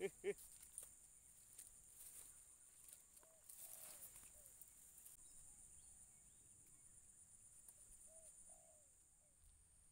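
Near silence: faint swamp ambience with a steady high insect drone and a few soft, short animal calls scattered through it.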